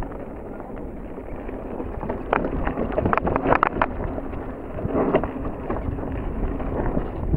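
Mountain bike riding down a dirt singletrack: tyres rolling over dirt and rocks with wind rushing on the camera's microphone, and the bike rattling and knocking over bumps, in a burst of sharp knocks a few seconds in and again about five seconds in.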